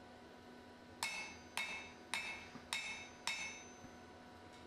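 Five evenly spaced hammer blows on a red-hot steel bar over the edge of an anvil, about two a second, each with a short metallic ring. The blows are a set down, thinning the bar where the hatchet's pole begins.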